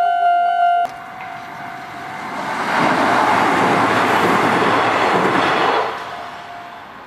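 Level-crossing electronic warning sound pulsing in a steady tone, cut off abruptly about a second in. A Kintetsu electric train then passes over the crossing: its running noise swells over a couple of seconds, holds loud, and fades away about six seconds in.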